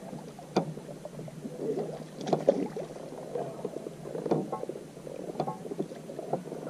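Light knocks and taps in a small fishing boat, scattered irregularly about half a dozen times, over a low, uneven rustle of water and handling.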